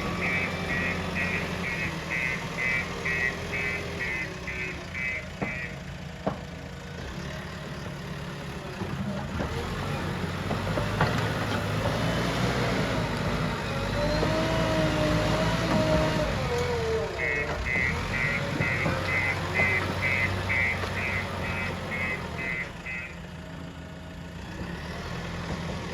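Diesel engine of a JCB 3DX backhoe loader running as it works, its note rising and falling in the middle stretch. A reversing alarm beeps about two to three times a second at the start for about five seconds, and again for about six seconds later on.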